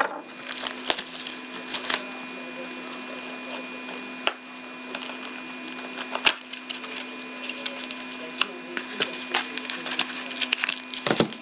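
Trading card pack wrapper crinkling and tearing in the hands as a pack is opened, with scattered small clicks and rustles of handling over a steady low hum.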